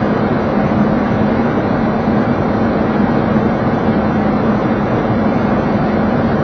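Steady flight-deck noise of a Boeing 737 on final approach with the landing gear down: a constant rush of airflow with a steady low hum underneath.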